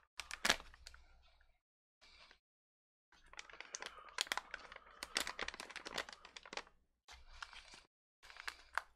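Crinkling and crackling of an MRE's plastic food packaging being handled. The longest stretch of rapid crackles runs from about three seconds in to nearly seven seconds, and two shorter bursts follow.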